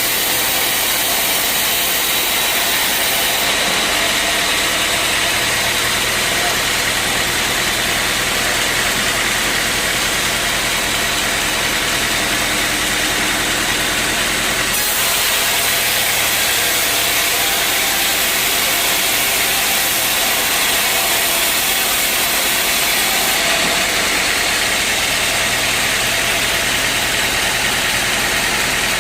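Sawmill machinery running steadily without a break, a dense engine-and-saw noise; its upper tone shifts abruptly a few times.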